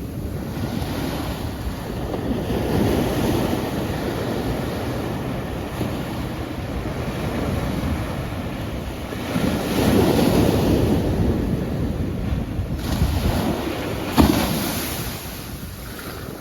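Sea waves breaking and washing on the shore, rising and falling in surges, with one sharp crash about fourteen seconds in that then fades away.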